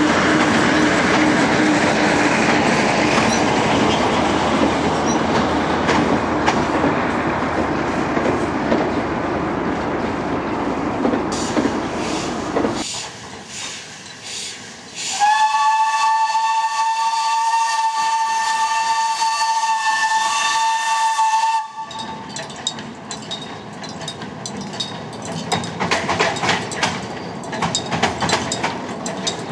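Narrow-gauge diesel train running across a steel truss bridge, a loud even rumble that cuts off suddenly about 13 seconds in. Then a locomotive horn sounds one long chord of about six seconds, and afterwards the train approaches again with wheels clicking over the rail joints near the end.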